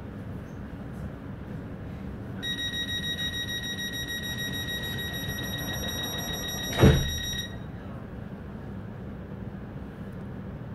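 Train door-closing warning: a rapid, high-pitched beeping starts about two seconds in and runs for about five seconds, with a loud thud near its end as the sliding doors shut. Underneath, the steady low hum of the stationary train.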